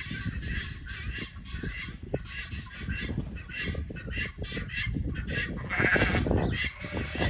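Black-faced sheep bleating, loudest in one long call about six seconds in, among other animal calls.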